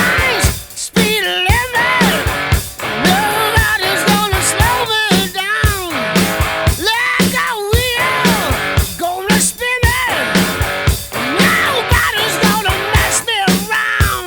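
Rock music with electric guitar, a singing voice and a steady drum beat.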